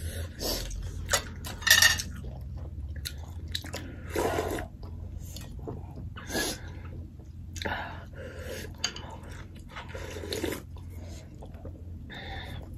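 Close-up eating sounds of thukpa noodle soup: wet slurps of noodles and broth and chewing, coming in short, uneven spurts with the loudest slurp about two seconds in. A steady low hum runs underneath.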